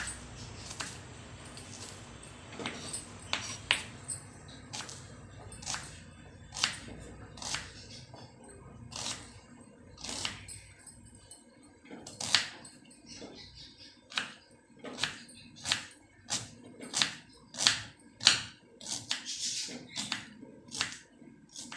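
Knife cutting vegetables on a cutting board: a series of sharp, irregularly spaced taps, coming closer together in the second half.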